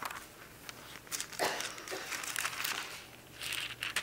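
Bible pages being turned and leafed through: papery rustling and swishes, in two stretches, about a second and a half in and again near the end.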